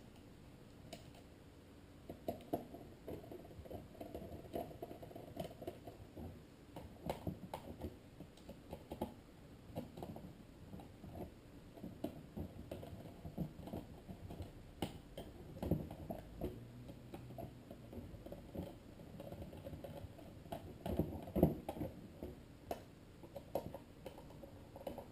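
Small screws being turned into the plastic housing of an instrument cluster, with irregular light clicks and taps as the parts and screws are handled.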